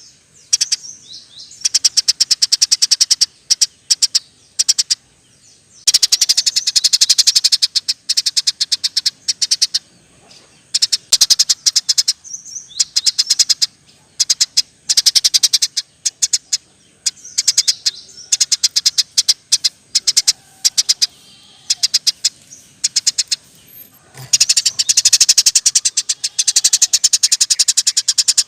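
Eurasian tree sparrow chirping hard in fast, rolling runs of sharp high chirps, each run lasting a second or a few, with short pauses between.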